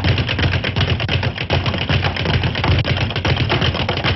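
A rapid, unbroken clatter of sharp knocks, many a second, over a low rumble.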